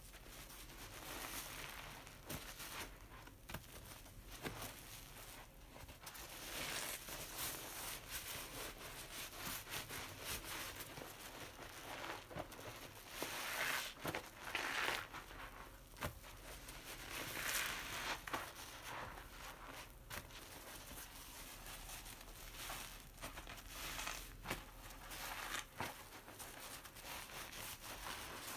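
A long yellow foam sponge soaked with dish-soap suds being squeezed and kneaded in a basin of soapy water: crackling, squelching foam that swells louder with each squeeze, every few seconds.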